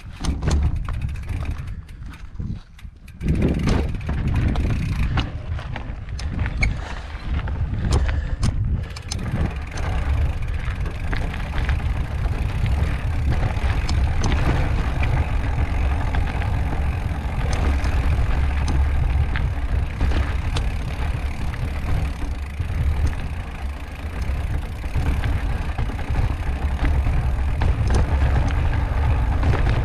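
Wind buffeting the microphone as a mountain bike rolls over sandstone slickrock, with the rumble of the tyres on rock. Sharp knocks and rattles from the bike over the first several seconds, then a steady rushing noise.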